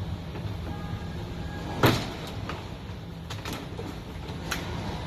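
A sharp plastic clack about two seconds in, then several lighter clicks and knocks, as the front bumper and grille fasteners of a 2011 GMC Terrain are worked loose by hand. A steady low shop hum runs underneath.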